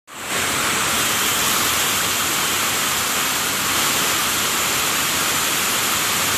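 Many weaving looms, Toyota JAT710 air-jet and Picanol machines, running together in a weaving hall: a loud, steady, dense hiss-like din with no single beat standing out.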